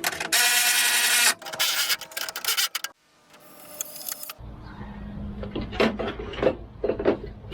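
Bolts being tightened down with a tool on a Toyota Land Cruiser's front body panels: a loud mechanical burst about a second long, then a run of rapid clicking that stops about 3 s in. About halfway through, background music with a steady low bass and plucked guitar notes fades in.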